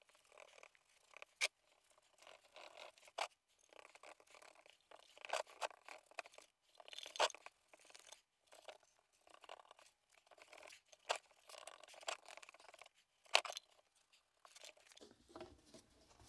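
Paintbrush bristles scratching over a sandblasted metal axle tube as primer is brushed on, in short irregular strokes with a few sharper clicks.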